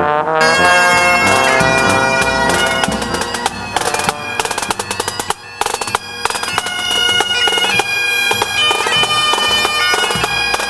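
Pipe band playing: bagpipes sounding a melody over their steady drone, with drums beating along.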